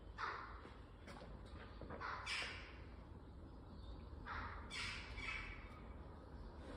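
A crow-family bird cawing: several short, harsh calls, each falling in pitch, spaced about two seconds apart.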